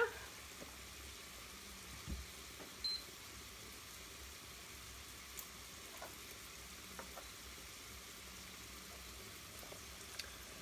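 Faint sizzling of sliced artichokes cooking in a pan with a little pasta water, with a soft knock about two seconds in and a short high beep about a second later.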